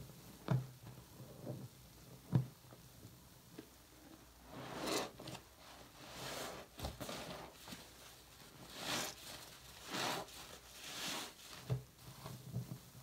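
Soapy sponge squeezed and kneaded by hand in a sink of mouthwash lather: wet squelching and crackling foam that comes in several swells, with a few sharp clicks.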